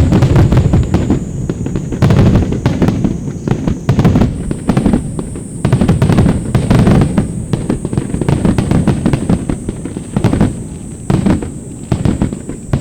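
Fireworks display: aerial shells bursting in a rapid barrage of deep booms and sharp cracks, one after another without a break.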